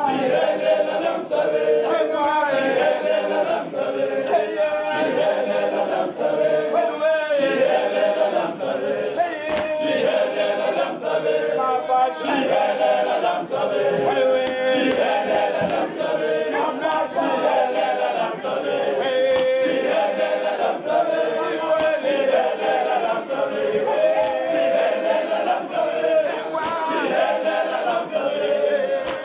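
Male choir singing a cappella, many voices together in a continuous song.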